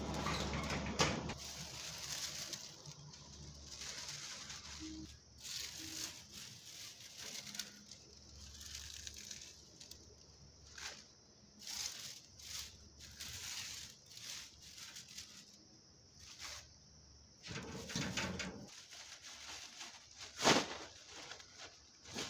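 Dry, brittle vegetable leaves rustling and crackling as hands sweep them around a wicker basket, with the crinkle of a thin plastic bag being handled, in irregular bursts.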